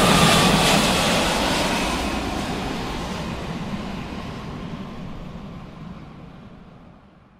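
Aircraft engine noise from a passing plane, a steady rush with a faint falling whine, fading away smoothly until it is gone.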